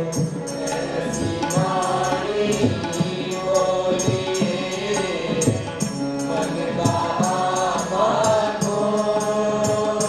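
Devotional Hindi song: a voice singing long, wavering notes over music with a regular beat of light percussion strikes, about three a second.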